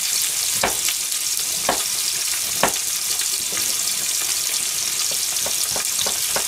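Ground meat sizzling steadily in hot oil in a frying pan, with short sharp clicks about once a second at first and coming quicker near the end.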